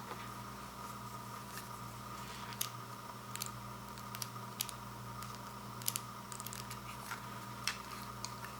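Scattered faint clicks and small taps of hand handling over a steady background hum.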